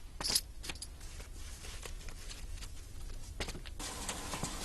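Faint, scattered brushing strokes close to the microphone, a foley imitation of dust being swept off a horse's body, with a sharper stroke just after the start. A steady hiss comes in near the end.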